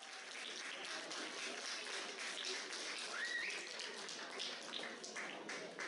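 Spectators clapping sparsely and irregularly over a steady hum of crowd noise, with a short rising tone about three seconds in.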